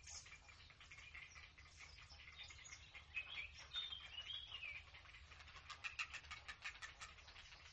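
Grey heron chicks begging at the nest: faint chirping calls, then a rapid ticking chatter in the second half.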